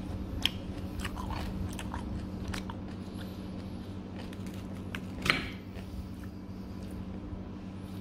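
Eating at the table: a metal fork clicks against a ceramic plate, sharpest about half a second in and again about five seconds in, between smaller clicks and crunchy chewing. A steady low hum runs underneath.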